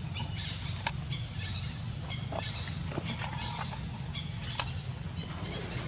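Outdoor ambience: faint high chirping over a steady low hum, with two sharp clicks, about a second in and again past the middle.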